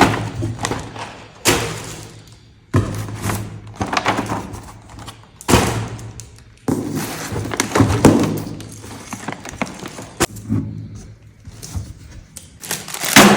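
Small plastic toy kitchen pieces and their packaging being handled during unboxing: irregular taps, knocks and set-down thuds with rustling between them.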